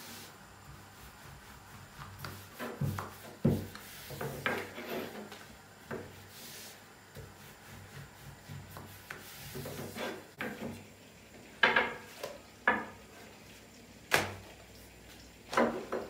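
Long thin wooden rolling pin (oklava) rolling out a thin sheet of yufka dough on a floured wooden table: soft rubbing and rolling with irregular wooden knocks and clatters of the pin on the tabletop, the sharpest ones near the end.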